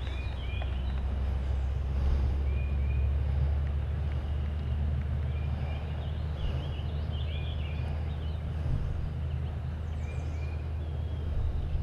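A bird calling in short chirps, often in pairs, several times, with a busier run of calls midway, over a steady low rumble.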